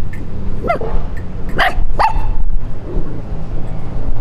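A puppy barking three short, sharp times: once under a second in, then twice close together about a second later, over a steady low rumble.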